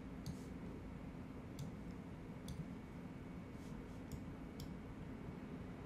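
A handful of faint, irregularly spaced computer mouse clicks over a low, steady room hum.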